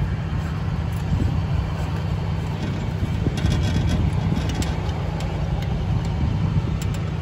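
Steady low rumble of an idling bucket-truck engine. A few faint light clicks come midway as an LED corn bulb is screwed into its mogul-base socket.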